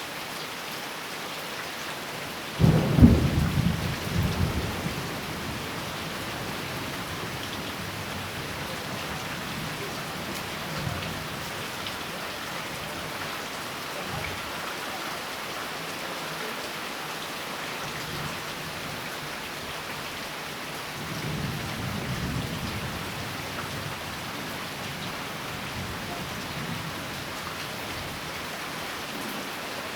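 Steady rain falling, with a sudden loud clap of thunder about two and a half seconds in that rolls on for a couple of seconds, and a fainter roll of thunder about twenty-one seconds in.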